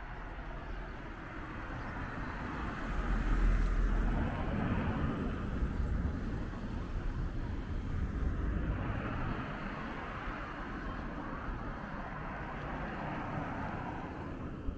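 Street traffic: a car passing on the road, its engine and tyre noise swelling to its loudest a few seconds in and staying up before easing.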